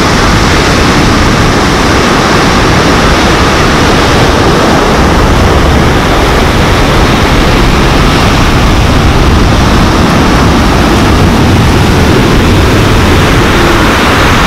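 Ocean surf breaking and washing up over a pebble beach: a loud, steady rush of water noise.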